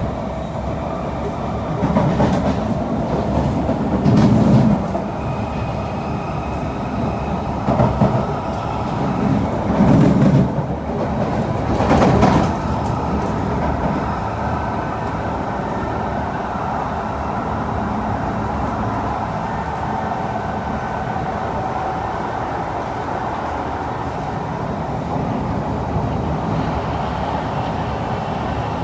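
Cabin running noise of a moving Kawasaki–Nippon Sharyo C151 metro train, a steady rumble of wheels on rail. Several louder swells of rumble come in the first half, then it runs on evenly.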